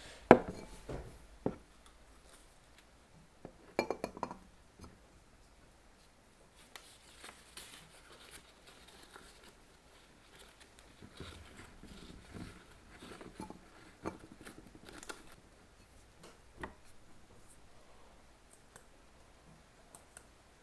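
Glass beaker and ceramic Hario V60 dripper clinking against each other and the table as they are handled, loudest about a third of a second in and again around four seconds. Then faint paper rustling as a paper filter is fitted into the dripper, with a few light knocks.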